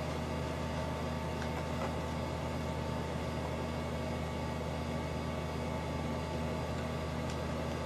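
Steady hum and fan noise from running electronics and cooling fans, with several fixed tones under an even hiss. A few faint clicks stand out about a second and a half in, near two seconds, and again near the end.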